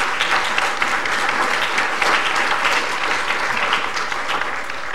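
Audience applauding: many hands clapping steadily in a dense patter, easing off near the end.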